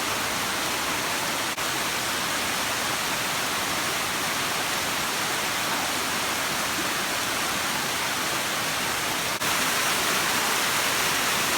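Waterfall rushing: a steady, loud wash of falling water, broken by two brief dropouts about one and a half seconds in and near nine seconds in, and a little louder after the second.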